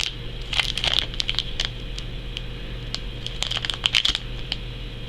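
Foil Pokémon booster packs crinkling in short irregular bursts as they are handled, over a steady low hum.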